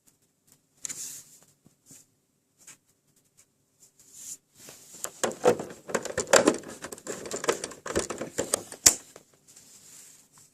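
PlayStation 3 console rattling: a few scattered clicks, then a dense burst of clattering from about four and a half seconds in until about nine seconds, ending in a sharp click.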